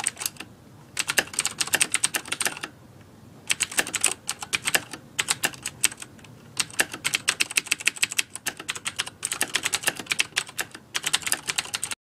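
Typing sound effect: rapid computer-keyboard keystrokes in runs of one to two seconds, separated by short pauses. It cuts off abruptly near the end.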